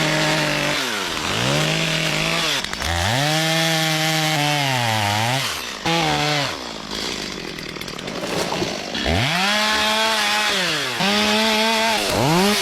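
Gas chainsaw cutting dead spruce: the engine revs up to full speed, holds, and drops back again about five times as it works through the wood.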